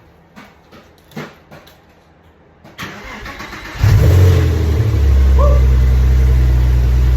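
Porsche Boxster S (986) flat-six engine cranked on the starter about three seconds in, catching a second later with a brief rev flare, then settling into a steady idle.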